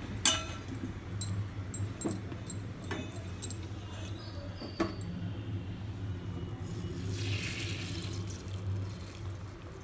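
Kitchen utensils clinking against a steel bowl and a pan: a series of sharp clicks, the loudest just after the start, over a low steady hum. A brief soft hiss comes about seven seconds in, as chicken gravy is ladled onto the rice.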